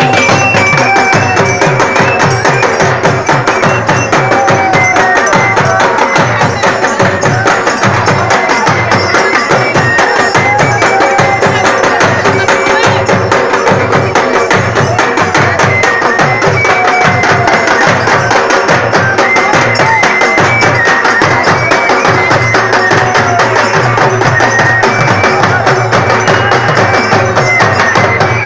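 Loud traditional Indian folk music for dancing: a large hand-beaten drum keeps a steady, driving rhythm under a wavering melody line, with crowd voices mixed in.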